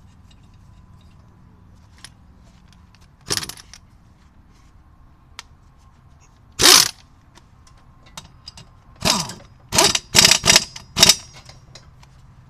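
Metal sockets and tools clanking as they are handled: one sharp clank, a louder one a few seconds later, then a quick run of five clanks in about two seconds near the end.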